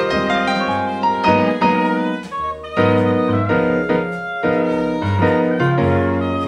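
Live small-group jazz: a saxophone playing a melody over piano and upright double bass.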